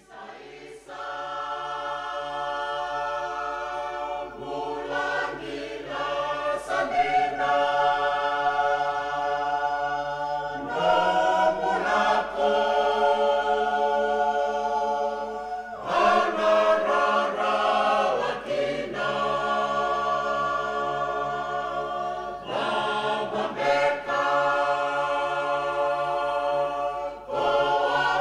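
Background music: a choir singing long held chords that change every few seconds over a steady low drone.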